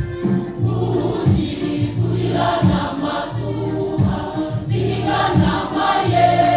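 Youth choir singing over an instrumental accompaniment with a steady, sustained bass line; the voices come in about a second in.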